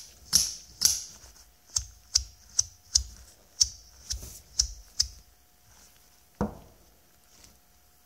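Haptic Coin fidget toy being snapped between thumb and finger: a series of sharp clicks, about two a second, as its two anodized shells spin against each other on their thrust roller bearing. The clicks stop after about five seconds, followed by one duller knock about six and a half seconds in.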